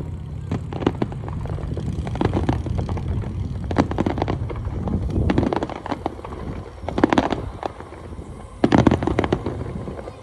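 Aerial fireworks shells bursting, a string of irregular booms and crackles, with louder clusters of bursts about seven seconds in and near the end.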